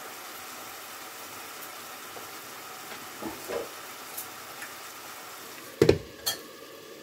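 Pineapple pieces in brown-sugar syrup sizzling steadily in a frying pan. Near the end a glass pan lid clatters down onto the pan with a couple of knocks, and the sizzling turns muffled under it.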